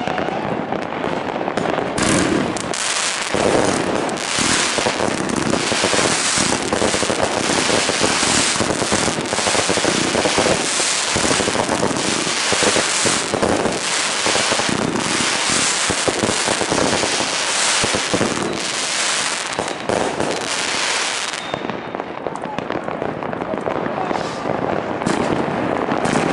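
Fireworks finale: a dense barrage of bangs and rapid crackling from many shells and crackling stars going off at once. The crackle thins out about 21 seconds in.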